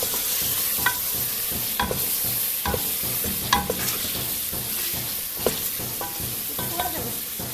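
Chicken, yogurt and masala sizzling in a hot metal pot while a spoon stirs and scrapes them, knocking against the side of the pot now and then. The yogurt is being fried into the masala (bhuna).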